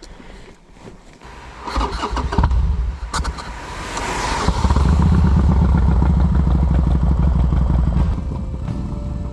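Large twin-cylinder motorcycle engine starting, then running with a steady deep low rumble from about halfway through, easing slightly near the end.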